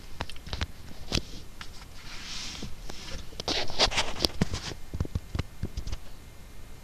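Handling noise from a handheld phone: scattered clicks and knocks with a few short rustling scrapes, the longest about halfway through.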